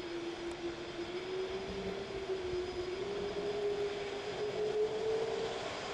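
Jet engines of a Boeing 767-200ER running as it taxis: a steady rush with one clear engine tone that slowly rises in pitch.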